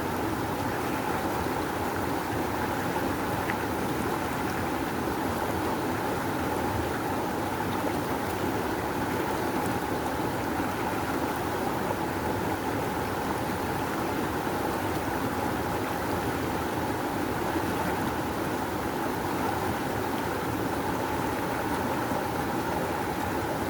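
River water rushing steadily over rocks, a constant even roar of flowing current.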